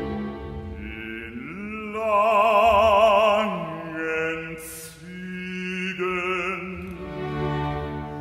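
Operatic bass-baritone singing with wide vibrato over a string orchestra. The voice slides up into a loud held note about a second and a half in, drops away, then sings a second phrase; sustained string chords continue underneath.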